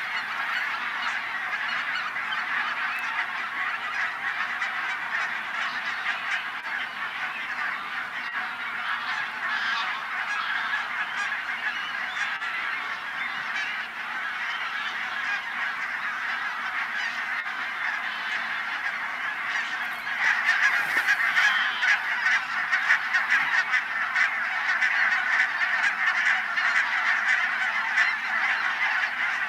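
A large flock of birds calling continuously: a dense clamour of many overlapping calls that grows louder about twenty seconds in.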